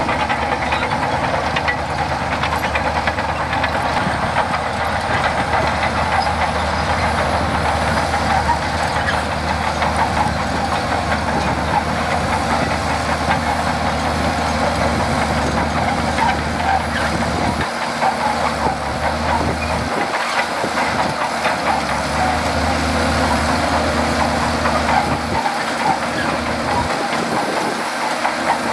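Shantui DH17C2 bulldozer working: its diesel engine runs steadily under a dense mechanical clatter. The low engine note drops away briefly a few times in the second half.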